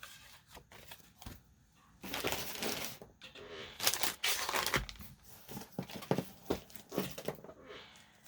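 Paper and packaging rustling and crinkling as a stack of greeting cards and envelopes is handled and sorted, with two longer bursts of rustling and many short crackles and taps.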